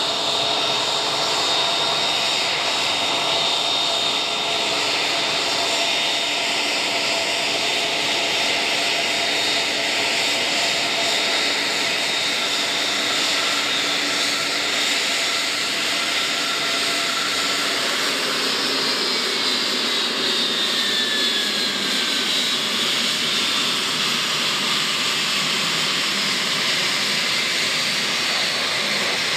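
Embraer KC-390's twin IAE V2500 turbofans running at taxi power: a steady jet roar with a high whine. About two-thirds of the way through, some of the whine tones slide down in pitch.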